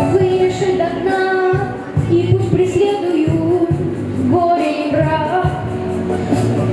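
A boy singing a pop song in long, wavering notes over a backing track with a steady drum beat.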